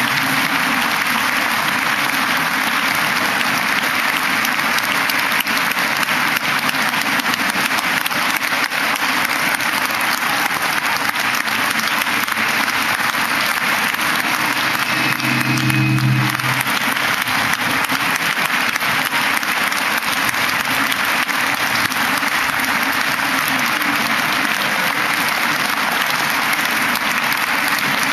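A large audience applauding steadily, many hands clapping at once, with a brief voice heard over it about halfway through.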